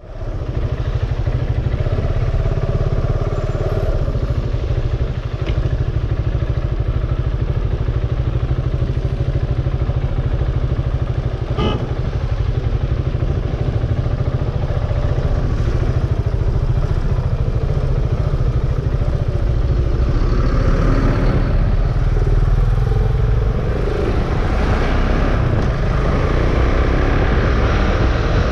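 Motorcycle ridden on the road, the KTM Duke 690's single-cylinder engine running under a heavy, steady low rumble of wind on the helmet microphone, with one sharp click about halfway through.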